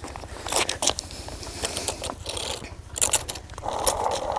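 Footsteps crunching on sandy ground and irregular scrapes and clicks as a cardboard model tractor is carried and set down on the dirt.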